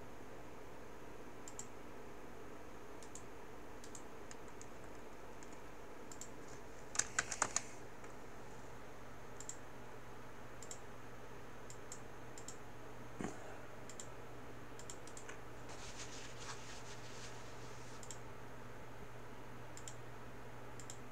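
Scattered clicks of a computer mouse and keyboard, with a quick run of four louder clicks about seven seconds in and a rapid flurry of clicks around sixteen seconds. A faint steady low hum underneath.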